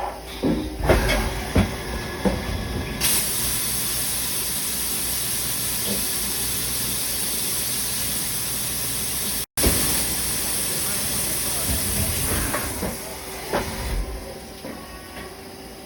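Haas SL-20T CNC lathe running under power: a few knocks and clicks, then a steady hiss starts about three seconds in and fades near the end.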